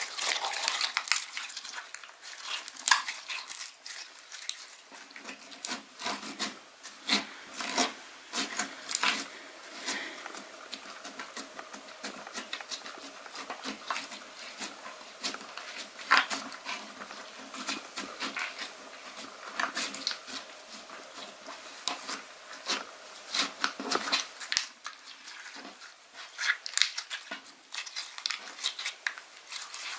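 Hands squeezing and poking slime, making a dense run of irregular sticky clicks and pops.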